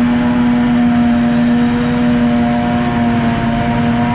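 Heavy farm machinery running steadily under load: a loud, constant engine drone with a strong steady hum over a rushing mechanical noise.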